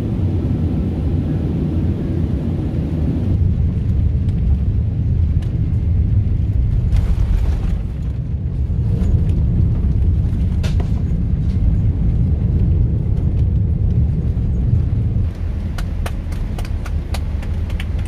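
Airliner cabin during a rough landing: a loud, steady low rumble of the aircraft on the runway, with a run of sharp clicks and rattles near the end.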